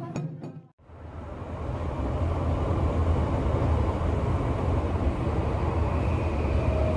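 Steady rumble and hiss of a commuter train running, heard from inside the carriage. It fades in about a second in, after a brief drop to near silence.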